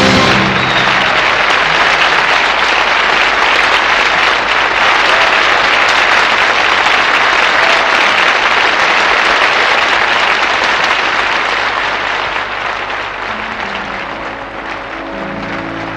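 Concert audience applauding loudly as the song ends, the clapping dying down over the last few seconds while the band starts to play again near the end.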